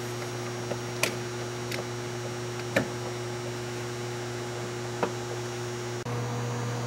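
Steady electrical hum, with a few faint clicks as the clutch hydraulic master cylinder and its line are handled and pulled free. The hum changes slightly near the end.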